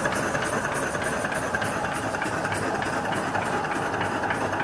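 Small steam engine running steadily off a vertical boiler, with a fast, even mechanical beat.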